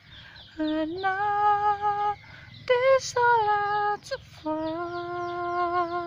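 Background music from a slow ballad: a wordless melody in long held notes, hummed or played, with a faint quick ticking high above it.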